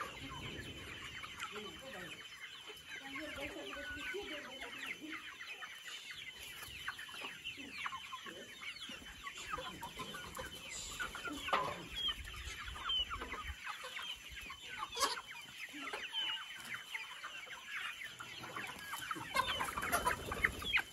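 A large flock of free-ranging local chickens clucking and calling over one another, a constant chatter of short overlapping calls. A few louder calls stand out about halfway through and near the end.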